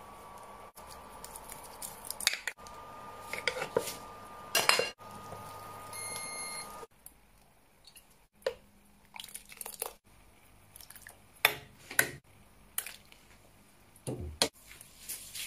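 A metal ladle clinking and scraping against a pot of soup in short, irregular knocks. A steady hum runs underneath and cuts off abruptly about seven seconds in.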